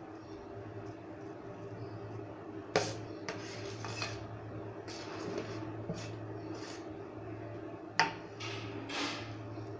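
A metal utensil knocking and scraping against a dish of mashed dal: two sharp knocks, nearly three seconds in and again about eight seconds in, with short scrapes in between, over a steady low hum.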